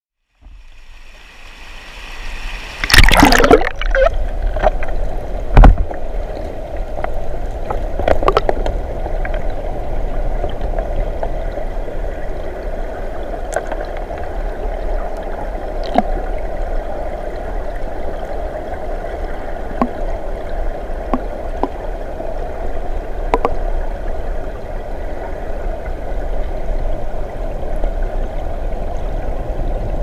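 Mountain stream running and gurgling over rocks, fading in out of silence over the first few seconds. Two loud sharp knocks come about three and five and a half seconds in, with fainter clicks scattered through the rest.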